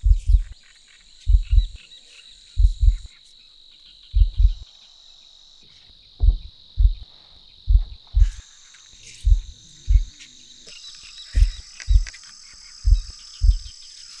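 Crickets and other insects trilling steadily, under deep, heavy thumps that come in pairs roughly every second and a half.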